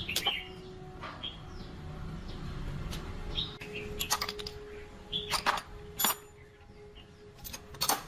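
Several sharp clicks and clinks at uneven intervals, the loudest near the end, with short bird chirps in the background.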